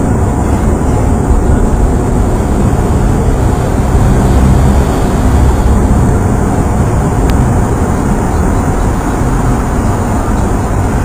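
Steady, loud low rumble of vehicle noise, with a single sharp click about seven seconds in.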